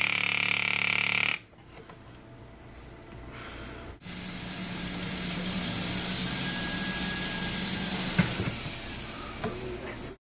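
A jeweler's power handpiece buzzing in two runs. There is a loud burst with a lot of hiss in the first second and a half, then, after a cut, a steadier lower hum with hiss from about four seconds in, with a couple of small clicks near the end.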